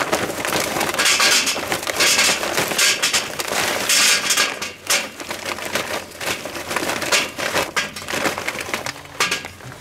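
Grillis charcoal briquettes poured from their bag into a metal chimney starter: a dense clattering and rattling of briquettes, heaviest in the first half, thinning to sparser clicks toward the end.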